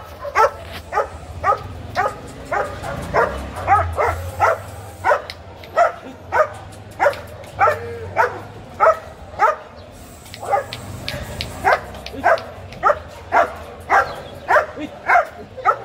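A dog barking over and over in a steady run, nearly two barks a second, with a short pause about ten seconds in.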